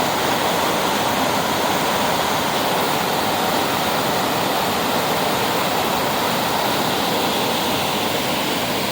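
Waterfall rushing: a steady, loud roar of falling water, swollen by recent rain.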